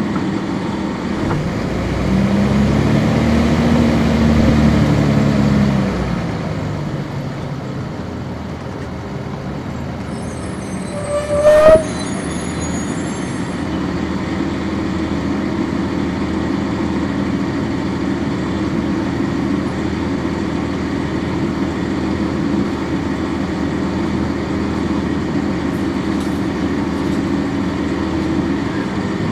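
Cabin sound of a 1999 NovaBus RTS transit bus with its Cummins ISC diesel engine running. The engine's pitch rises and then falls over the first few seconds before settling into a steady drone. A short, sharp squeal about a third of the way in is the loudest sound.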